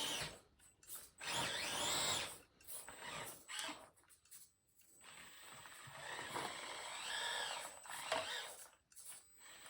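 Axial SCX24 micro RC crawler's 50-turn brushed electric motor and gearbox whining in short bursts, the pitch rising and falling as the throttle is worked, with pauses between.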